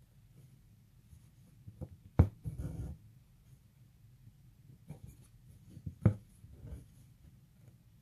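Embroidery needle and floss worked through fabric stretched taut in a hoop, close up: two sharp taps, each followed by a short scratchy rasp of floss pulling through, about two seconds in and again about six seconds in, with lighter scratches between.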